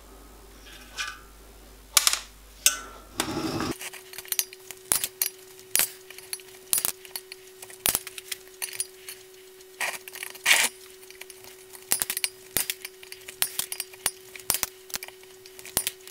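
Side cutters snipping off the ends of copper boiler stays, a quick run of sharp clicks about two a second, with the cut-off ends clinking on the copper. A faint steady hum sits underneath from about four seconds in.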